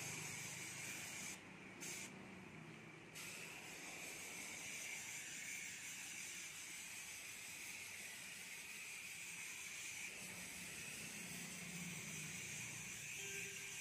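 Graco airless paint sprayer spraying exterior wall paint: a steady high hiss of paint atomising at the spray tip, which drops away twice briefly about two seconds in.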